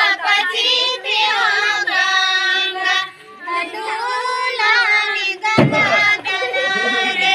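A group of women singing a Santali Sohrai song together in high voices, with a short break about three seconds in. A single loud thump sounds about five and a half seconds in.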